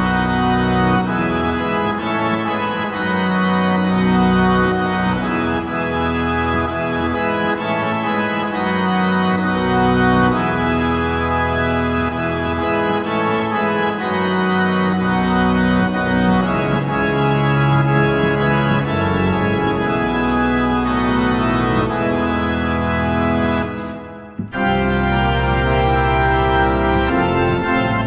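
Yamaha Genos keyboard playing its pipe organ voice: full, held chords over a moving bass line. It breaks off briefly a few seconds before the end, then comes back in.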